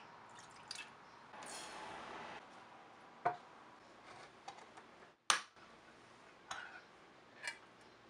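Water poured from a plastic bottle into a small metal saucepan for about a second, then a few sharp knocks and taps as a can and utensils are set down on a wooden cutting board, the loudest just past the middle.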